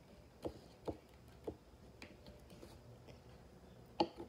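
Soft taps of fingertips pressing paper strips down onto glued cardboard on a tabletop, a few scattered in the first second and a half, then one sharper, louder click near the end.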